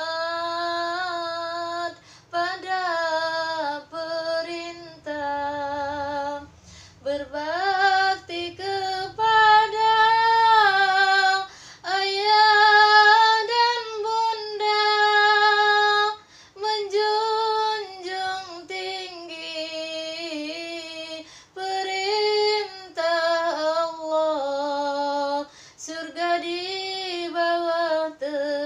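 A woman singing a Malay nandong lullaby in long, ornamented held notes with short breath breaks, the melody climbing higher in the middle before settling lower again.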